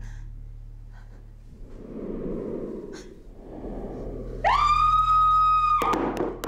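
A loud, high wailing tone sweeps up quickly, holds steady for about a second and a half, then cuts off sharply. Before it there is only a faint low hum and soft rustling.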